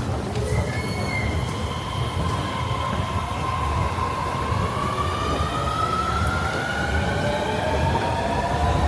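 Train moving through the station: a long whine that slowly rises in pitch, with fainter higher tones above it, over a steady low rumble.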